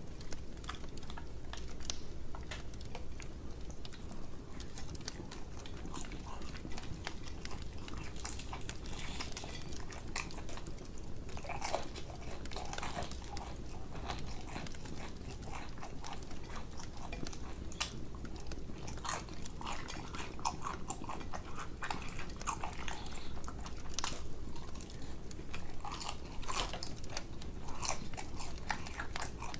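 Close-up chewing and crunching of crispy fried chicken, with sharp crackles scattered throughout as the breaded skin is bitten and torn apart by hand.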